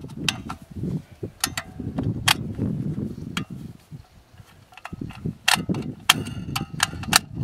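Cartridges being thumbed one by one into an AR-15 magazine: a series of sharp metallic clicks as each 5.56 round snaps in under the feed lips, spaced out at first and quicker near the end.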